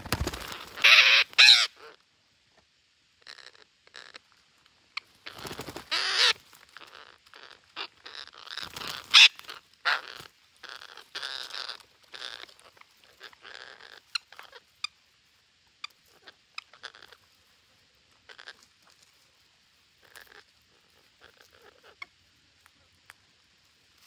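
A flock of red-breasted parakeets calling with harsh screeches. The loudest calls come in the first two seconds and again around six and nine seconds, followed by softer, scattered short calls.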